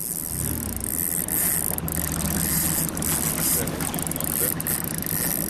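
Boat outboard motor running steadily at low revs, a constant low hum, with a few faint clicks over it.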